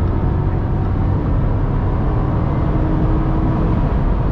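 Steady cabin noise of a 2011 Range Rover L322 with the 5.0-litre supercharged V8 at high autobahn speed: a constant low drone of engine, tyres and wind, with a few faint steady tones and no change in pitch.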